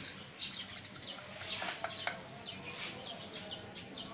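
Small birds chirping over and over in short, high calls. A few light knocks come about one and a half to two seconds in.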